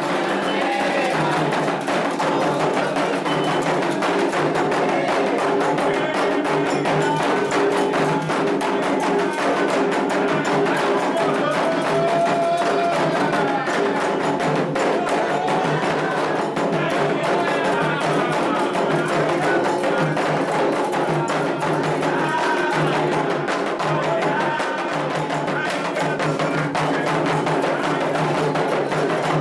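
Candomblé atabaque drums beating a fast, dense rhythm with a struck bell keeping time, and voices singing over it. This is the drummed toque (the 'rum') played for the orixá Oxumaré's dance.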